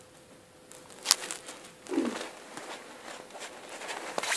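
Handling noise as a pet agama lizard is grabbed and lifted off a person's head: a few sharp clicks and soft rustling, with a brief low falling sound about two seconds in.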